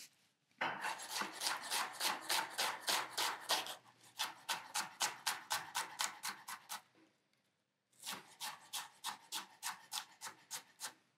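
Chef's knife finely chopping an onion on a wooden cutting board: quick, even knocks of the blade on the board, about five a second, in three runs with short pauses about four and seven seconds in.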